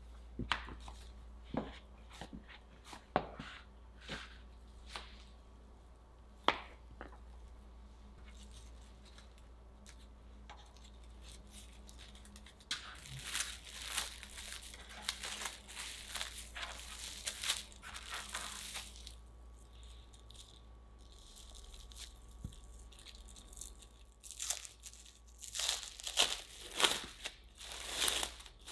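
Plastic cling film crinkling as hands press and fold it around a block of dough, in two spells of rustling, the second near the end. It is preceded by a few scattered sharp taps.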